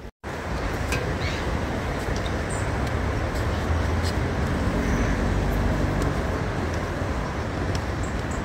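Road traffic: vehicles running past on a road, with one engine's hum swelling through the middle and easing off again.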